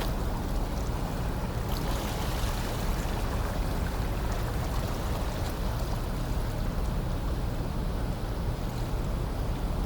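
Steady low rumble and rush of wind on the microphone and moving water, around a car ferry coming into harbour.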